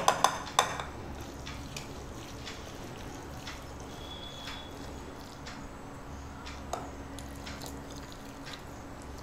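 Wire whisk stirring a wet oat-and-vegetable chilla batter being thinned with added water: soft squishing with scattered light clicks of the whisk against the plate, a couple of sharper clicks at the very start, over a low steady hum.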